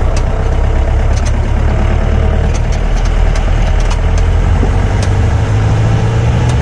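Jeep engine running, a steady low drone, with a few light clicks over it.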